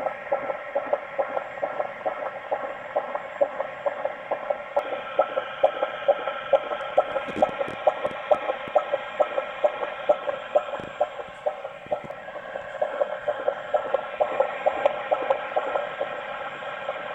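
Fetal heartbeat picked up by a handheld fetal Doppler and played through its speaker: a fast, even pulse of about two and a half beats a second, around 150 a minute, over a steady hiss.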